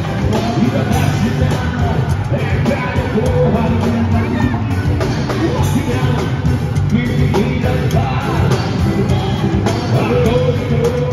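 Live rock band playing loudly with vocals, an electric bass and a steady drum beat, heard from the stage.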